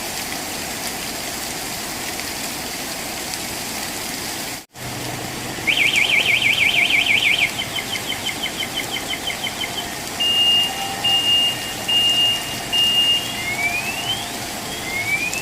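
Steady hiss of rain. Then a car alarm cycles through its siren tones: a fast warble, slower chirps, a run of steady beeps, and two rising whoops near the end.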